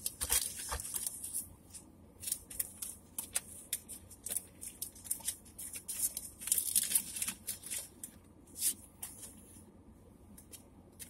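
Crinkling and rustling of plastic packaging and cards being handled, in irregular spurts of short crackles, as a trading card is taken out of its wrapper.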